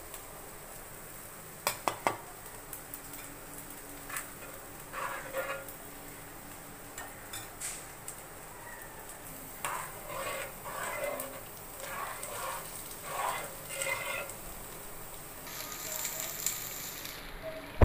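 Vegetables in chilli sauce sizzling in a pan while a spoon stirs them and scrapes the pan. A few sharp clinks of the spoon on the pan come about two seconds in, and a run of quick stirring strokes follows midway through.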